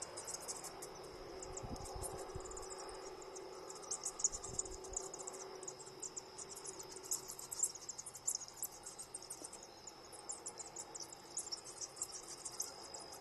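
A roosting bat colony chittering: a dense, irregular stream of high-pitched squeaks over a steady high whine.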